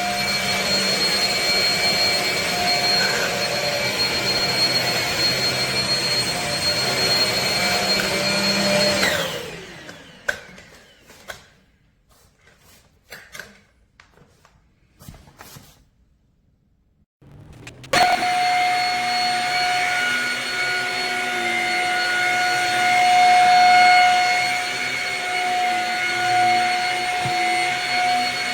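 Shark Rocket corded stick vacuum running with a steady whine, then switched off about nine seconds in and winding down. For several seconds there are only a few clicks and knocks, then it starts again with a click and runs steadily.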